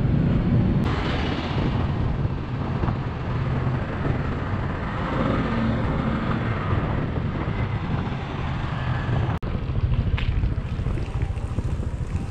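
Motor scooter riding along the road: engine and road noise under heavy wind buffeting on the microphone. The sound changes abruptly about a second in and again after about nine seconds.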